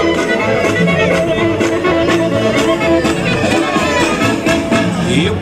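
Polka band music in an instrumental passage between sung lines of the song, with a steady beat.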